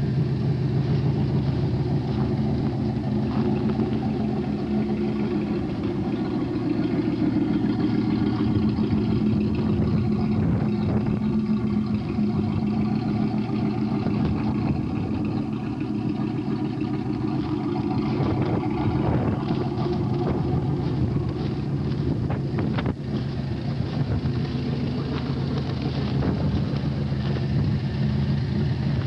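Chevrolet Camaro IROC-Z's V8 engine idling steadily.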